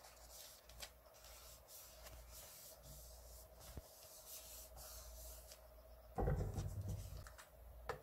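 Fingers rubbing and pressing torn paper onto a journal page: a soft, dry paper-on-paper rubbing. A dull thump about six seconds in is the loudest sound, over a faint steady hum.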